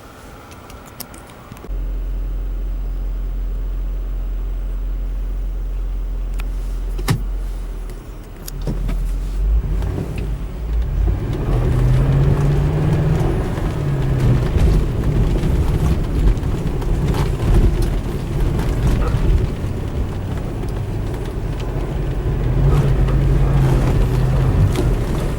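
Mercedes-Benz ML SUV driving off-road. A steady low drone for the first several seconds, with a single click about 7 s in. Then a louder, rough rumble as the engine note rises and falls under load, twice climbing higher.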